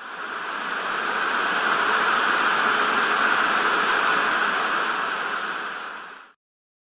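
Television static hiss: a steady rushing noise with no pitch that swells up over the first second or so, then cuts off suddenly a little after six seconds.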